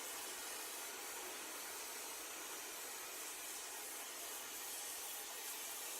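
Oxyacetylene torch flame hissing steadily while heating a bent steel vise handle to straighten it.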